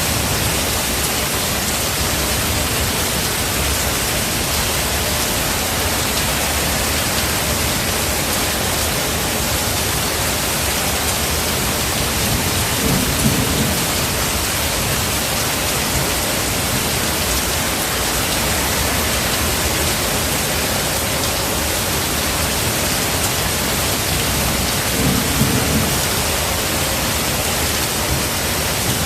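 Steady heavy rain in a forest, with two short, low rolls of thunder, one about halfway through and one near the end.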